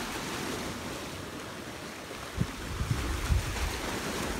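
Surf breaking and washing over rocks as a steady hiss. From a little past halfway, gusts of wind buffet the microphone with uneven low rumbles.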